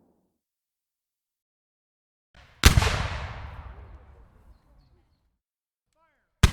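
A sound-effect blast of the gunshot kind: one sharp, loud report about two and a half seconds in, with a long echoing tail that dies away over about two seconds. A second identical sharp report begins right at the end.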